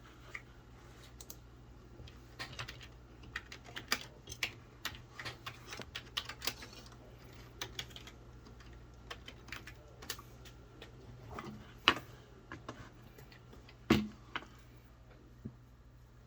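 Typing on a computer keyboard: irregular runs of key clicks, with two louder single clicks in the last third, over a faint steady hum.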